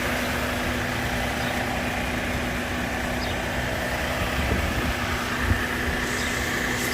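2015 Hyundai Genesis 3.8 L V6 idling steadily with a constant hum. The car has a throttle actuator control range/performance fault, with the throttle not responding to the pedal.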